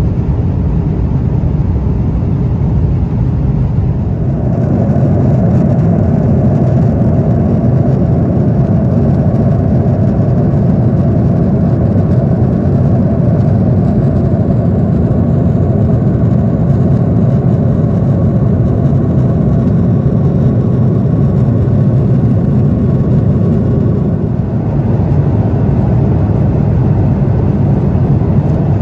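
Jet airliner engine and airflow noise heard from inside the passenger cabin: a loud, steady low rush that grows slightly fuller about four seconds in and then holds even.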